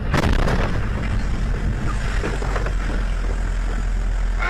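Vehicle driving through a snowstorm: a steady, heavy low rumble under a haze of noise. It gets suddenly louder with a rush of noise right at the start.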